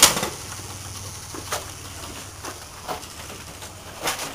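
Airsoft rifle gunfire: the tail of a full-auto burst right at the start, then a few scattered single sharp shots about a second apart.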